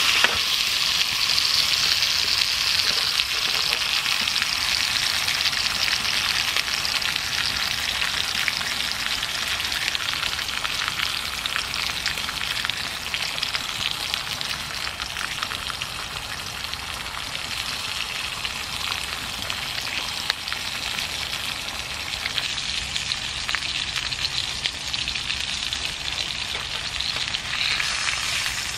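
Meat frying in a pan on a wood-burning stove: a steady sizzle with small crackles.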